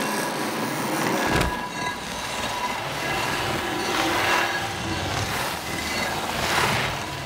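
A crowd applauding and cheering, swelling about four seconds in and again near the end.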